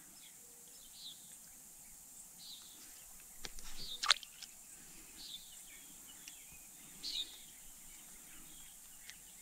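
A small perch dropped back into the pond, landing with a light splash about three and a half seconds in. Faint bird chirps come every second or two over quiet outdoor background.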